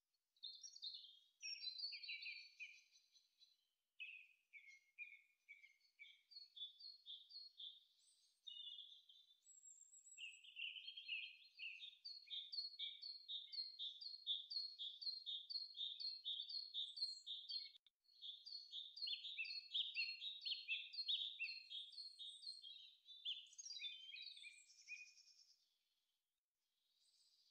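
Birds chirping and singing in quick runs of repeated high notes, with brief breaks about four and eighteen seconds in.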